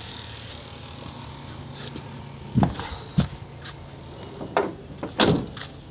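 Several loud thumps and knocks of someone climbing down out of a truck cab onto the ground: two about two and a half to three seconds in, then two more about a second and a half later. A steady low hum runs underneath.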